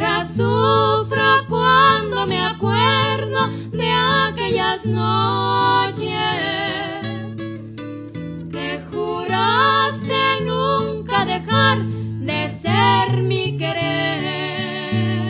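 Two women singing a Mexican song in harmony, accompanied by three strummed acoustic guitars with a steady bass line on the low strings.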